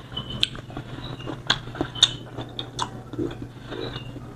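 Close-miked wet chewing of peeled rambutan fruit: irregular smacking clicks of the mouth, roughly two a second, over a low steady hum.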